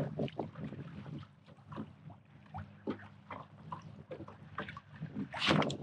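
Small wind-driven waves slapping and lapping against a plastic kayak hull, with wind buffeting the microphone and scattered little ticks. A louder burst of noise comes near the end.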